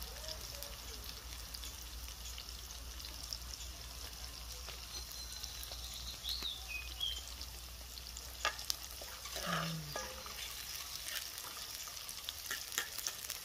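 Chopped natural seasoning sizzling steadily in hot oil in a black pot over an open fire. Near the end a fork scrapes and clicks against the pot as it is stirred.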